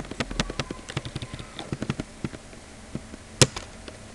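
Computer mouse in use: a run of quick clicks from the scroll wheel over the first two seconds, then a sharp double click about three and a half seconds in, which opens a folder.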